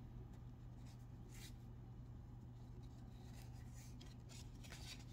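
Faint rustling and rubbing of Pokémon trading cards being handled, a few soft scrapes with the clearest about a second and a half in, over a steady low hum.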